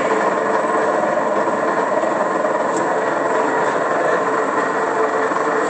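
WellSaw Model 1270 12" x 16" semi-automatic horizontal band saw running steadily, its motor driving the blade round the wheels with an even mechanical hum.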